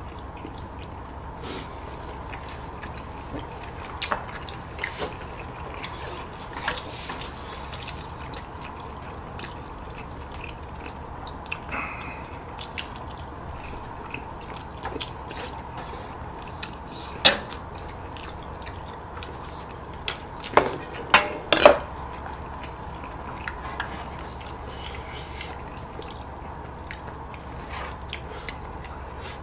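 Close-up eating sounds of ramyeon: wet chewing and slurping, with chopsticks and a ladle clicking against bowls and the pot. There are a few sharper, louder clinks in the second half.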